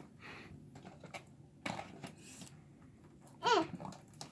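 Light rustles and small clicks of a cardboard doll box being handled as its top flaps are worked open, then near the end a short wordless vocal sound from a child, falling in pitch.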